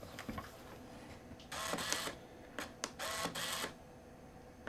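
Canon EOS Rebel S 35mm film SLR firing twice, about a second and a half apart: each release is a short mechanical clatter of mirror and shutter run straight into the built-in motor winding on. Two sharp small clicks fall between the two firings.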